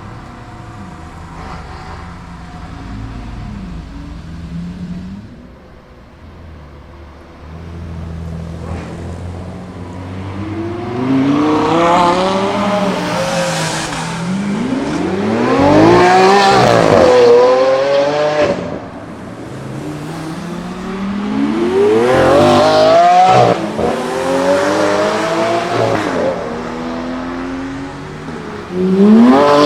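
High-performance sports car engines accelerating hard away. A low engine rumble for the first several seconds gives way to loud revving runs, the engine note climbing steeply in pitch and then dropping, two or three times, with the loudest run about two-thirds of the way in.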